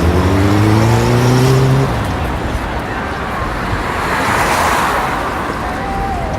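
City street traffic: a vehicle engine accelerating, its pitch rising, for the first two seconds, then steady traffic noise with a vehicle passing by about four to five seconds in.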